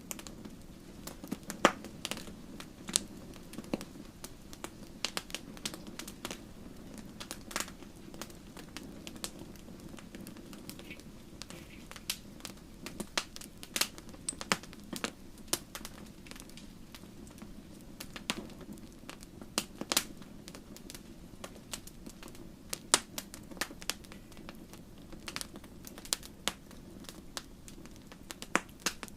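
Fireplace fire crackling, with irregular sharp pops and snaps over a steady low rushing sound.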